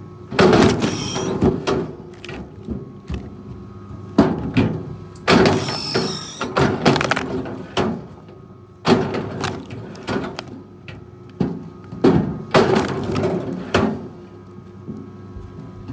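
Wood cracking and crunching in a series of loud, irregular bursts with thuds, over the steady hum of a heavy machine's engine running.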